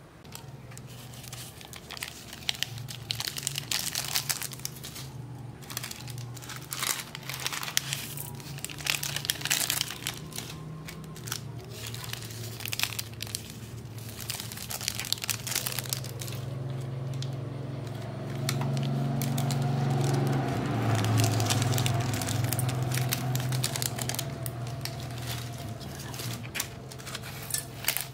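Plastic instant-noodle seasoning sachets crinkling and being torn open, their powder and flakes shaken out over noodles in a steel pot, with many short crackles throughout. A low steady hum runs underneath, louder about twenty seconds in.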